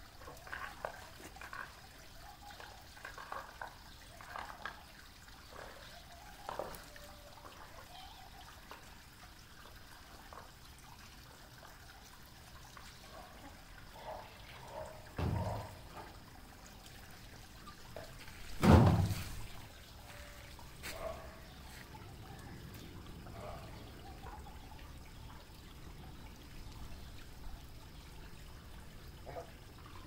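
Small splashes and trickles of shallow puddle water as white domestic ducks dabble and preen in it. Two short dull thumps about halfway through, the second the louder.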